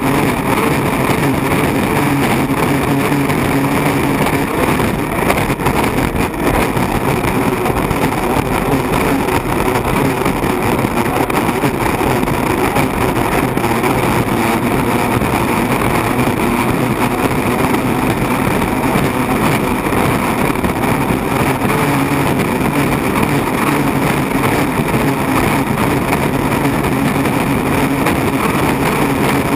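Unlimited hydroplane's turbine engine running at racing speed, heard from inside the cockpit together with wind and water rushing past the hull, a loud, steady noise that does not let up.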